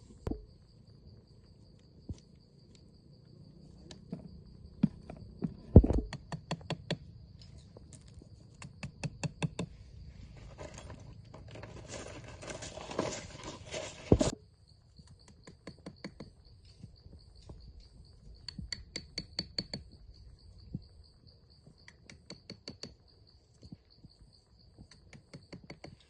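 A steady high insect drone, over which come runs of quick tapping clicks and a few louder knocks. A stretch of rustling noise near the middle ends in a sharp knock.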